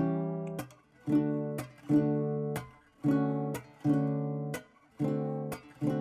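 Background music: an acoustic guitar strumming chords at a steady pace, about one a second, each chord cut short before the next.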